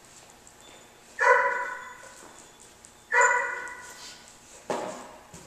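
Dog barking: two loud barks about two seconds apart, each ringing on in the large room, then a fainter one near the end.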